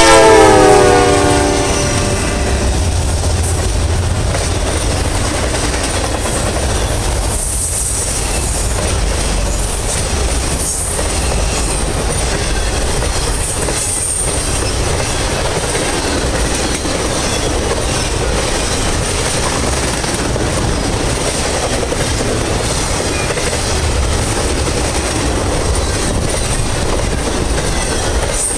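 A Norfolk Southern freight train's horn blast drops in pitch and dies out about two seconds in as the diesel locomotives go by. Then comes the steady rumble and clatter of a long string of intermodal flatcars, carrying containers and truck trailers, rolling past with their wheels clicking over the rail joints.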